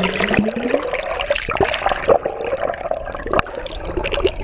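Water splashing and sloshing around a fishing boat, with scattered sharp knocks and clicks.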